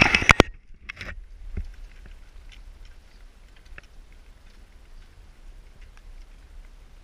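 Footsteps crunching on gravel and loose scree, loudest in the first half-second with another short crunch about a second in, then faint irregular steps and clicks. A steady low rumble of wind on the microphone lies underneath.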